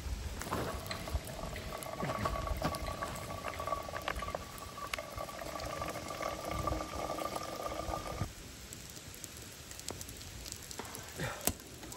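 Water boiling in a small black camp kettle on a Coleman canister stove, with a steady singing tone over the bubbling and a few light clicks. The tone cuts off suddenly about eight seconds in.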